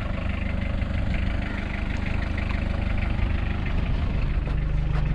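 Mitsubishi Pajero's freshly rebuilt 4D56 2.5-litre turbodiesel four-cylinder running steadily.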